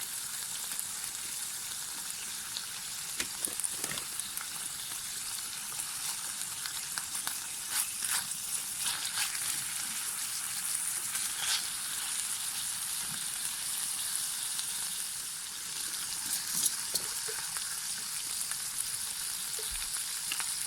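Food sizzling in a pan on a camp stove: a steady high sizzle with frequent small pops and crackles.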